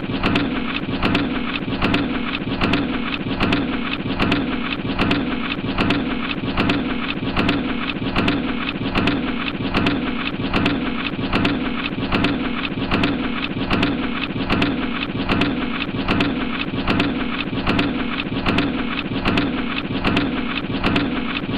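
Factory press machine running continuously: a steady, dense mechanical clatter with a sharp, regular knock about twice a second.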